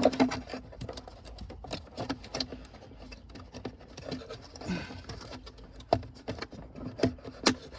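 Scattered light clicks and taps of hands handling small plastic parts, with a few sharper clicks near the end, over a faint steady hum.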